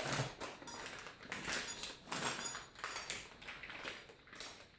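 Rustling and light clinking from small metal parts being handled and unwrapped from their packaging, in a string of short irregular bursts.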